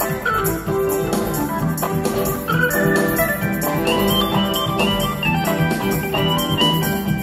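Live rock band playing an instrumental passage of a song with no singing, recorded from the audience. A melody line moves over the full band.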